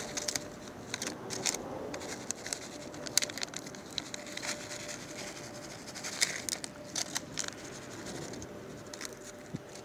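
Plastic cat-food pouch crinkling and rustling as it is handled, a run of irregular sharp crackles.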